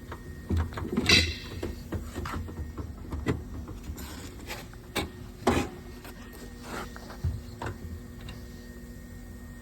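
Metal tools and drawers of a steel tool cart being handled: scattered clinks, knocks and rattles of varying loudness, the loudest about a second in and again about five and a half seconds in.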